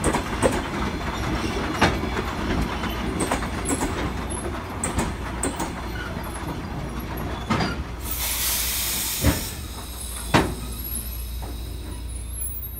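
Latvian DR1AM diesel multiple unit rolling slowly into the platform, with a steady low rumble and irregular clacks from its wheels over the rail joints. About eight seconds in there is a burst of compressed-air hiss as the train slows to a stop.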